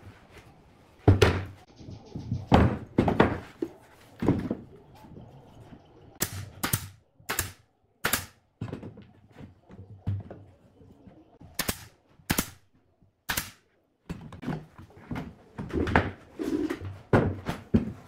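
Irregular knocks and thunks mixed with sharp clicks, some in quick runs of three to five, from hand work with pieces and tools during woodworking.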